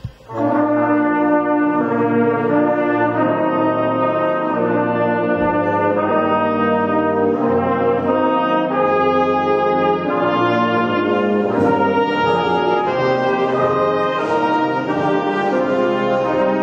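A brass and reed band playing held chords, with trombones and trumpets prominent. The band comes in just after a brief break at the start.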